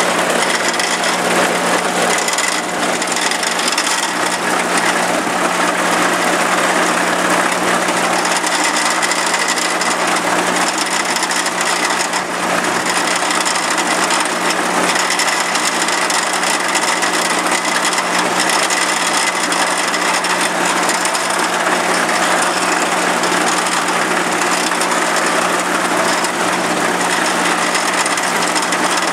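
Farm machinery running steadily: tractor engines and forage harvesters making a continuous loud mechanical drone.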